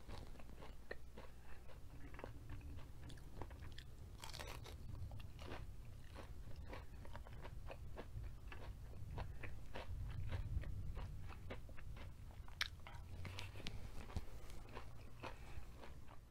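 Close-up chewing of crunchy breaded fried zucchini: a steady run of irregular small crackles and crunches, with a low steady hum underneath.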